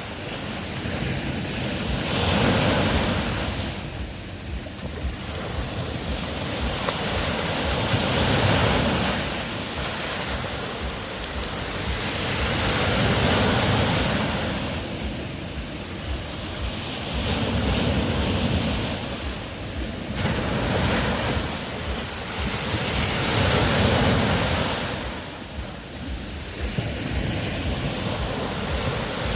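Ocean waves breaking and washing in, the surf swelling and falling back every five seconds or so in slow, even surges.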